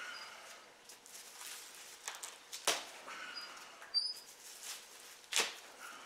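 Stiff wing feathers being pulled by hand from a freshly killed wild turkey: scratchy rustling of feathers with quills tearing loose, two sharper rips near the middle and near the end. The feathers are tough to pull because the bird has been dead a while.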